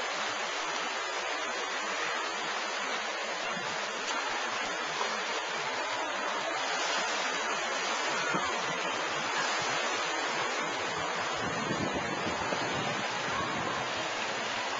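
Wave pool surf washing over the shallow beach entry: a steady rush of water noise.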